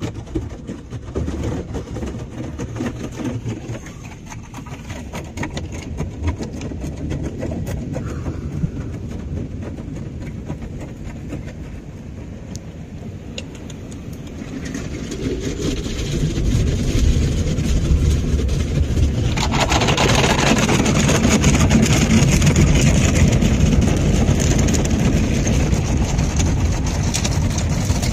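Ryko SoftGloss XS 2 rollover car wash heard from inside the vehicle: the wash gantry running with a steady low rumble as water sprays and splashes over the body, starting suddenly. About twenty seconds in, a louder hissing wash of water and spinning foam brushes swells up and stays.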